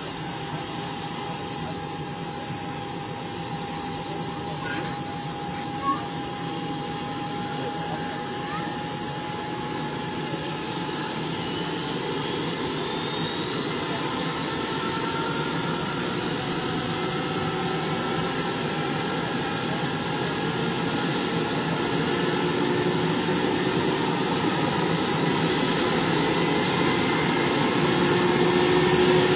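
Jakadofsky Pro Turbine of a large RC scale EC-135 model helicopter running over a steady rushing noise. Its high whine rises slowly in pitch and grows louder as it spools up. There is one sharp click about six seconds in.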